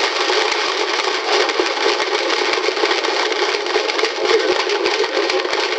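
Audience applause, a dense even crackle of many hands clapping, heard on an old recording that is thin and has almost no bass.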